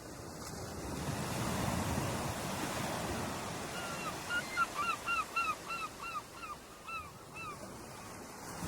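Ocean surf washing onto the shore, a wave swelling up over the first couple of seconds. From about four seconds in a bird gives a rapid series of a dozen or so short, hooked calls over the surf.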